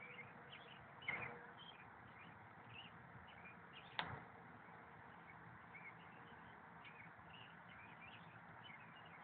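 Near silence: a faint background hiss with distant birds chirping now and then, and two brief sharp knocks, about one second and about four seconds in.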